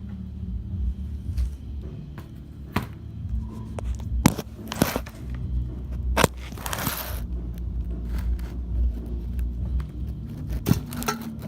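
Moss Caribbean Breeze ceiling fan running on low with a steady low hum, overlaid by clicks, knocks and a scraping rustle from the camera being handled, loudest a little past the middle.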